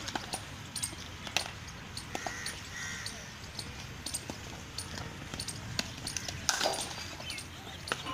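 Cricket net practice: irregular sharp knocks of leather cricket balls off bats and the pitch, coming from several nets at once, some close and loud, others fainter.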